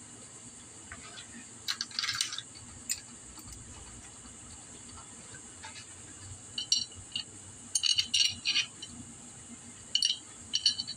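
Metal clinking and jingling of the bolts and a hand tool being handled while the two cylinder-head bolts of a GY6 scooter engine are fitted, in a few short clusters, the busiest in the second half.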